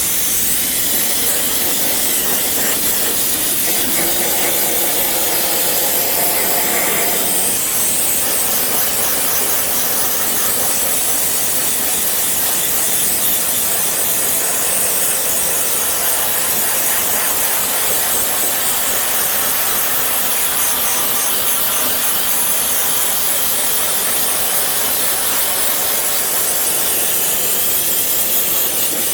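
A steady high-pressure spray hissing through the stacked cores of a car's radiator, air-conditioning condenser and intercooler as they are cleaned, with a rougher, lower-pitched stretch a few seconds in.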